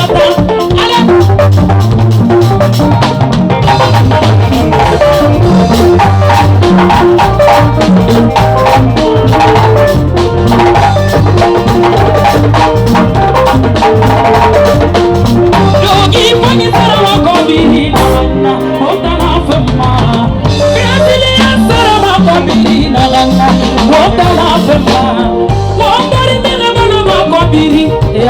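Loud dance music with a steady drum-kit beat and a bass line, running without a break.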